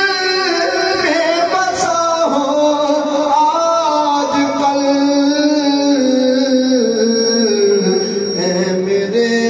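A man's voice singing a devotional naat in long, drawn-out held notes that bend and step slowly from pitch to pitch.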